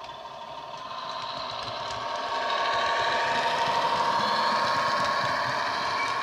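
Class 150 Sprinter diesel engine sound from a DCC sound decoder, played through the model train's 27mm bass-enhanced speaker. It runs steadily along with the model's running noise, growing louder as the train passes close and easing slightly near the end.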